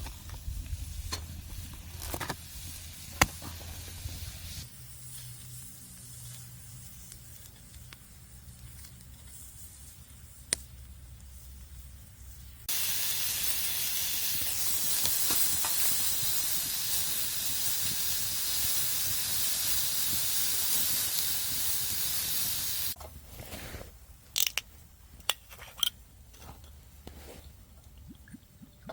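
A steady hiss, like a spray or jet of gas, that starts suddenly about thirteen seconds in and cuts off sharply about ten seconds later. Scattered light clicks and knocks come before and after it.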